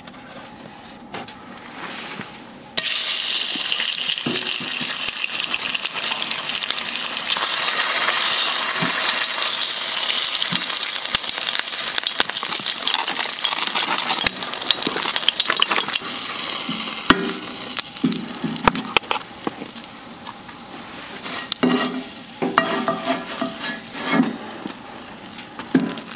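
Hot oil in a steel frying pan on a wood-burning tent stove sizzles loudly as a patty goes in, starting suddenly about three seconds in. The sizzle eases after about fifteen seconds, and clicks and scrapes from turning and lifting the patty come through it near the end.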